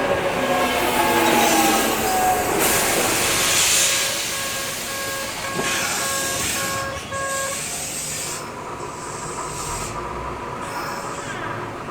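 Japanese railway level-crossing alarm ringing about twice a second over a Kintetsu Minami-Osaka Line train's running noise, with a falling whine in the first couple of seconds. The alarm stops about seven and a half seconds in, leaving a low steady hum.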